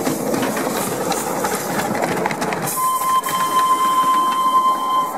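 Quarter-scale Bagnall 0-4-0 saddle-tank miniature steam locomotive moving off, its running gear and the track giving a clicking rattle. About three seconds in, a steady high whistle sounds for roughly two seconds and then stops.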